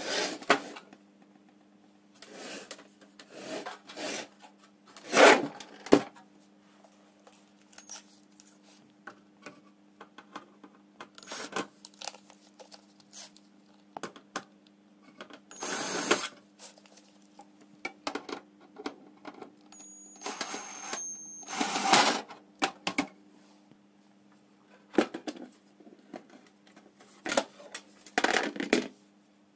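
Irregular clicks, clacks and knocks of small hard objects being handled and set down, with a few longer clattering stretches, over a steady low hum. A brief high tone sounds about twenty seconds in.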